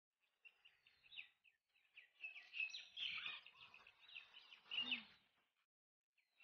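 Faint chirping of small birds: many short, high notes in quick runs, stopping about a second before the end.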